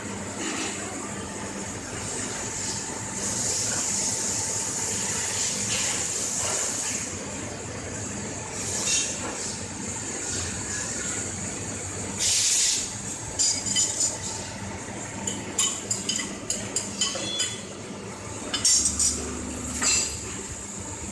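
Steady machinery noise in a commutator moulding shop, with long bursts of compressed-air hiss at the press. From about two-thirds of the way through come many quick metallic clinks as small metal commutator parts are handled in the mould.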